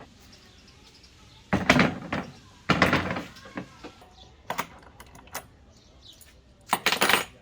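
Metal parts and tools being handled and set down on a workbench: a few loud knocks and clattering rattles, with small clicks between them and another loud clatter near the end.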